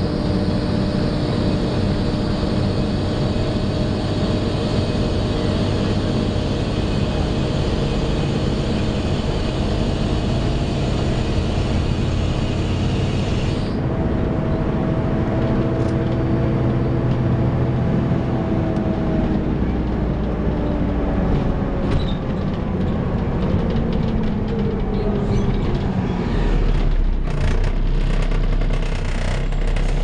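Volvo B7TL double-decker bus heard from the upper deck, its engine cooling fan making a high-pitched, hoover-like screech over the engine and road noise. The screech cuts off suddenly about halfway through. Later the engine's tone falls in pitch as the bus slows and settles into a low idle near the end.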